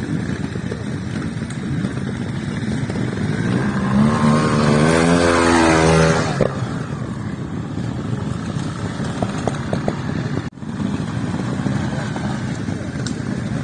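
Trials motorcycle engine running under throttle as it climbs a section. It swells into a loud rev that wavers in pitch from about three and a half seconds in, then chops off abruptly about two and a half seconds later, before settling back to a lower running sound.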